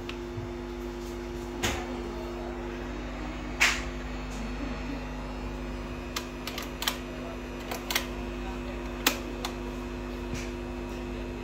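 Garrard record player with a steady electrical hum and scattered light mechanical clicks and taps as its front control sliders are handled, the sharpest click about three and a half seconds in.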